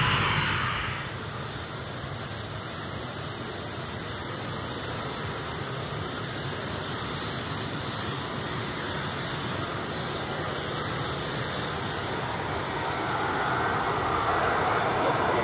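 Aircraft engine noise heard across the airfield: a steady rush with a faint high whine, dropping back about a second in and growing louder again near the end.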